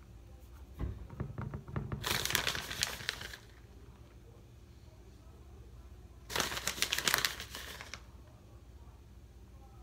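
Plastic bag of shredded cheese crinkling as a hand reaches in and shakes cheese out of it. There are two spells of rustling: one about a second in, and another about six seconds in.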